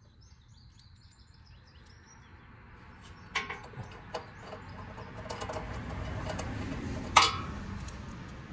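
Faint bird chirps, then scattered light metallic clicks and taps as nuts are threaded by hand onto a steel bumper reinforcement bar, with one sharp clack about seven seconds in. A rushing background noise swells under the clicks.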